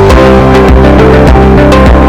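Background music with guitar, bass and a steady drum beat.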